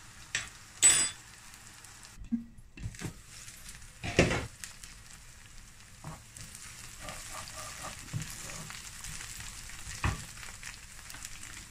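Chopped onions sizzling as they fry in oil in a frying pan while being stirred, with a few sharp knocks of a cooking utensil against the pans, the loudest about four seconds in. The sizzle grows fuller from about halfway through.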